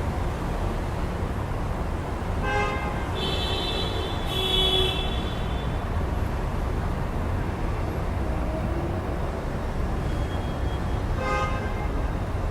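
City street traffic rumbling steadily, with vehicle horns sounding over it: a short honk about two and a half seconds in, a longer, higher toot soon after, and another short honk near the end.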